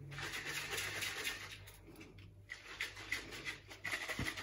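Plastic shaker bottle with a mesh mixing insert being shaken hard, the shake sloshing and splashing inside in quick repeated strokes.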